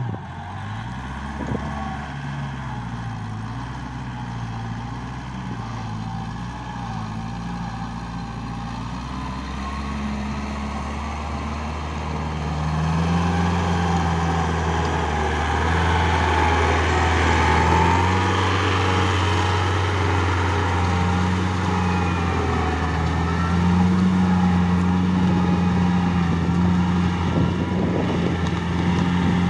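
Small diesel paddy tractor engine running under load as it pulls a rotary tiller through wet rice-field mud. Its pitch wavers at first, then it grows louder and steadier about a third of the way in.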